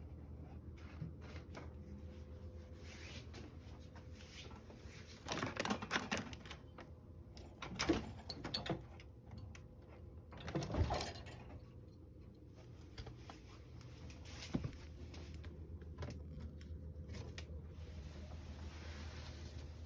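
A cat scrambling about: three short bursts of scuffling and knocks, about five, eight and eleven seconds in, and a single sharp knock a little later, over a steady low hum.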